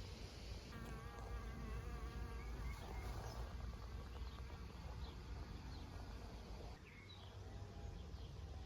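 A flying insect such as a bee or fly buzzing close by, its buzz clearest for a couple of seconds about a second in, with a few faint short bird chirps.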